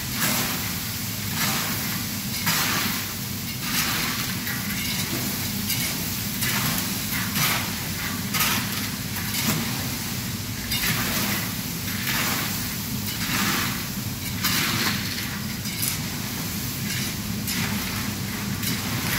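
A flat metal spatula turning over a large steel pot of uncooked pasta mixed with oil and vegetables: a scraping, rustling swish about once a second.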